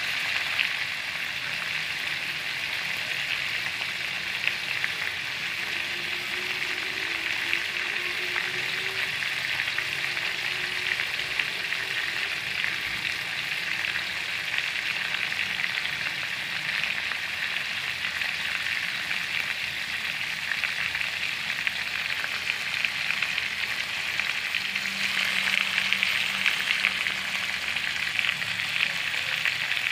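Pork liver slices frying in hot oil in a pan: a steady sizzle with fine crackling, growing a little louder near the end.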